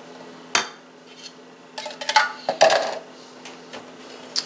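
Kitchenware clinking and clattering: a sharp clink about half a second in, then a cluster of knocks and clatters around two to three seconds in, and another clink near the end.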